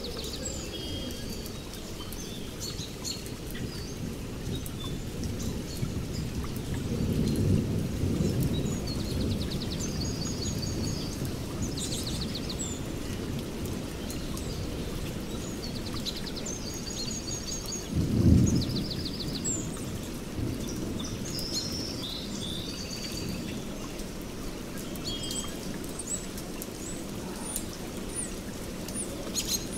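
Steady rain with thunder rumbling low: one rumble swells about seven seconds in, and a louder, shorter one comes about eighteen seconds in. Birds chirp repeatedly over the rain.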